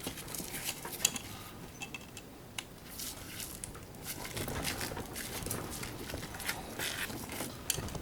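Parts of an old Rival electric can opener being picked and pried apart by hand: irregular small clicks, scrapes and crinkling, with a sharp click about a second in and another near the end.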